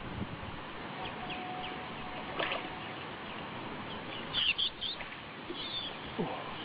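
Birds chirping in short, high calls over a steady background hiss, with a quick cluster of chirps about two-thirds of the way in and another soon after.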